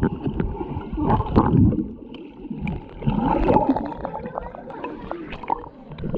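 Swimming-pool water gurgling and sloshing, heard from under the surface and muffled. It swells about a second in and again around three seconds.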